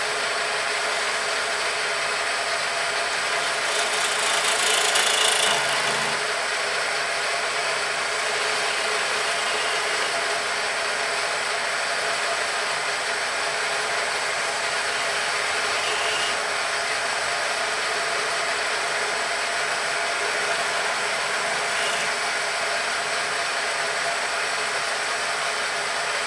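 Wood lathe running steadily, its motor giving a constant hum, with a louder hissing stretch about four seconds in.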